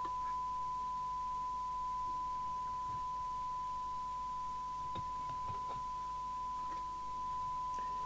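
A steady 1 kHz test tone, the kind used to modulate a test signal when checking and aligning a CB radio. A few faint clicks come about halfway through, from the radio's case being handled.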